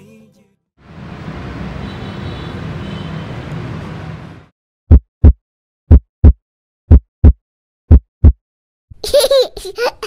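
Heartbeat sound effect: four loud double thumps, about one a second, after a few seconds of steady hiss. Voices and laughter start near the end.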